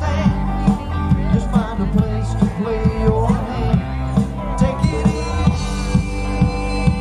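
Background rock music with a steady drum beat, guitar and singing.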